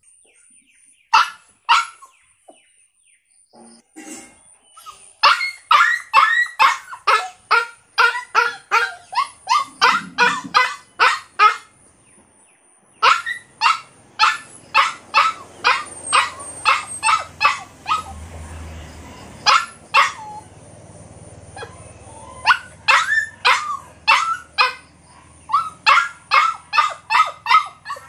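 Dog barking in quick runs of short barks, about two or three a second, with pauses between the runs; a pair of barks comes about a second in.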